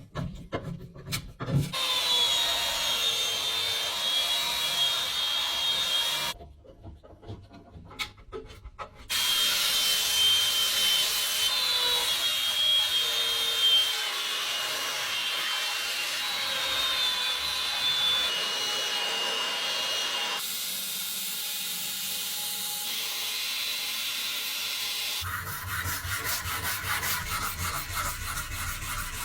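Abrasive scraping and rubbing on the old cleaver, in long continuous runs with a short pause. Near the end it turns into quick, even back-and-forth strokes.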